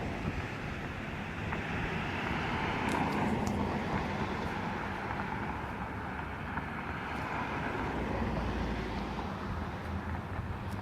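Distant jet aircraft overhead: a steady, even rush of engine noise that swells a little through the middle.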